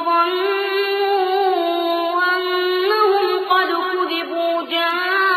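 Quranic recitation (tajweed) by a single high-pitched, boyish voice, chanting in long held melodic phrases whose pitch glides slowly, with only brief breaks.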